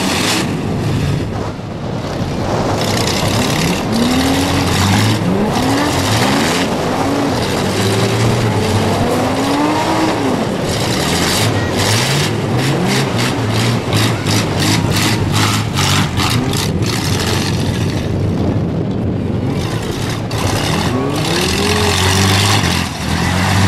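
Demolition-derby van engines revving hard again and again, their pitch climbing and falling, over a loud steady din, with a run of sharp knocks about halfway through.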